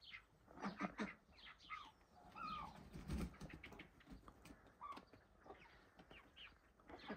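Farmyard poultry calling: hens, ducks and their chicks or ducklings giving a scattered run of short chirps and peeps, several overlapping. A low bump is heard about three seconds in.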